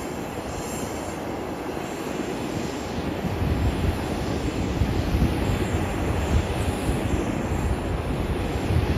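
Airbus A220-300's Pratt & Whitney geared turbofan engines on final approach: a steady jet rush with a low rumble, growing louder from about three and a half seconds in as the aircraft nears.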